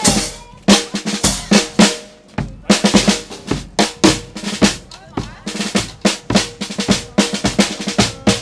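Marching band drums: a bass drum with a cymbal mounted on it and a snare drum played with sticks, beating a fast, uneven rhythm of sharp strokes and deep thumps, with a brass horn holding a note underneath.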